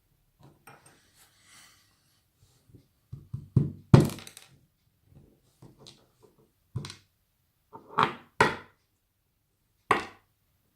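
Separate sharp knocks and taps of small metal lock parts as an Abus 83CS/50 padlock's core is taken apart and its pins are removed, with the loudest knock about four seconds in and two close together near the two-thirds mark.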